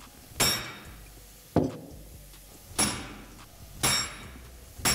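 Hammer blows on a friction-welded titanium test piece clamped in a steel bench vise, five strikes about a second apart, each ringing metallically: the joint is being struck to test whether the weld holds.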